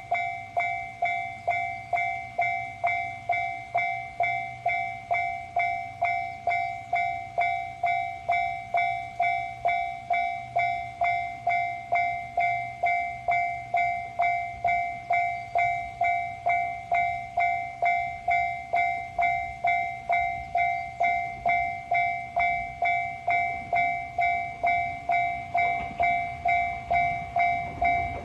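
Japanese railroad crossing alarm ringing its steady electronic 'kan-kan' at about two strikes a second. A low rumble builds near the end.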